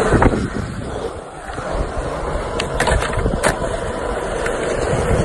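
Skateboard wheels rolling over concrete: a steady rumble, with a few sharp clicks from the board around the middle.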